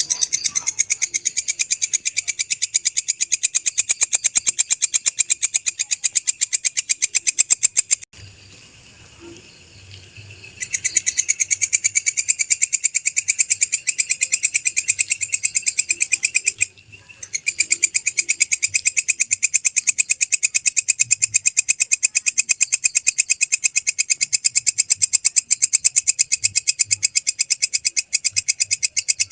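Walang kecek (kecek grasshopper) calling: a rapid, even train of high, dry chirps. It stops for about two seconds after eight seconds in, then breaks off again briefly later on.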